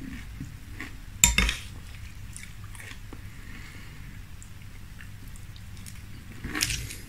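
A metal spoon clinks sharply once against a glass cereal bowl about a second in, followed by faint scraping through milk-soaked frosted corn flakes. Near the end, crunching of a mouthful of the flakes being bitten.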